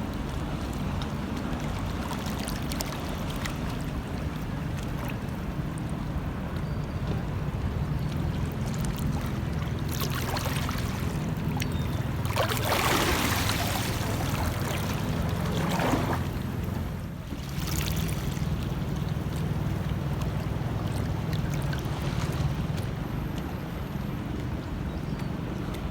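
Sea water at a harbour lapping and washing, with louder splashing swells about ten, sixteen and eighteen seconds in, over a steady low rumble.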